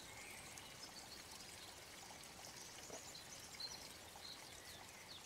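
Near silence: a faint steady hiss of background ambience, with a few faint, short high chirps scattered through it.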